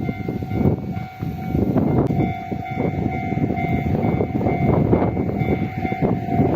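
A train passing over a level crossing: wheel rumble with a quick run of clicks as the wheels cross rail joints. Over it, the crossing's warning bell rings steadily, clearest in the second half as the rumble eases.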